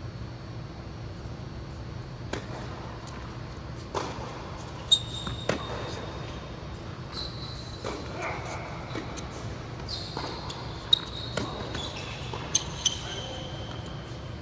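Tennis rally on an indoor hard court: a handful of sharp racket-on-ball hits and ball bounces, with short high sneaker squeaks on the court surface in between.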